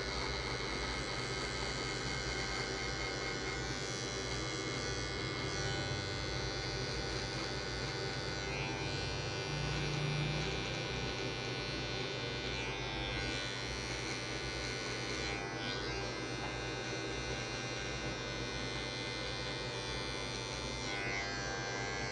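Electric hair clipper running with a steady hum and no guard fitted, its bare blades cutting hair down to the skin.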